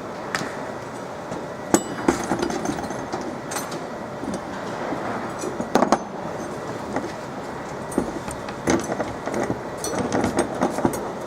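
Irregular sharp clicks, knocks and metallic clinks of tools and small metal parts being handled while a laser marking machine's lens assembly is taken apart.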